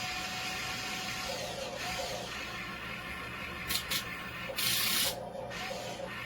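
Small electric motor and plastic gearbox of a toy remote-control dump truck whirring steadily, with two brief hissing spurts a little before four seconds in and a louder hiss lasting about half a second shortly after.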